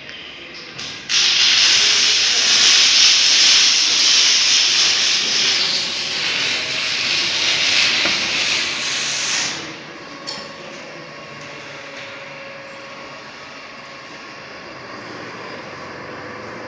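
A loud, steady hiss starts abruptly about a second in and cuts off after about eight and a half seconds, leaving a much quieter steady background with a faint tone.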